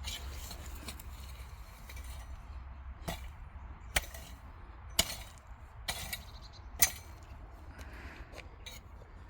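Freshly dug potatoes knocking into a container as they are gathered: five or so sharp knocks about a second apart, over a low steady rumble.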